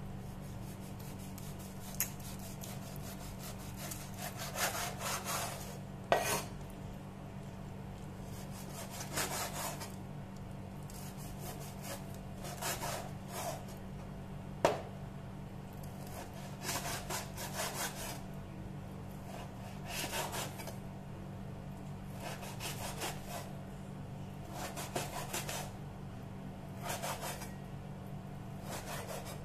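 Cleaver slicing raw meat on a wooden cutting board: short runs of sawing strokes every two or three seconds, with a few sharp knocks of the blade on the board.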